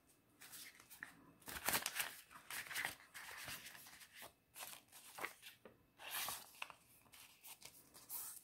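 Clear plastic binder pouches crinkling and paper banknotes rustling as bills are slid into a pouch and the pouches are handled: a run of irregular crisp rustles.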